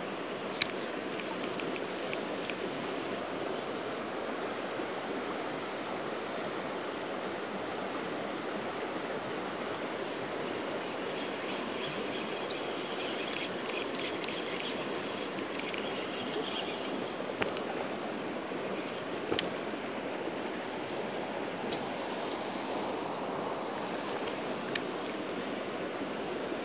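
Steady rush of flowing river water, with a few light clicks scattered through it and faint high chirping about halfway.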